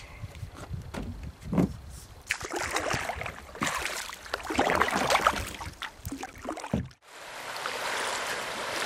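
Water splashing and sloshing around a kayak as it is paddled, with uneven bursts of splashes. It cuts out suddenly about seven seconds in and is followed by a steady rush of noise.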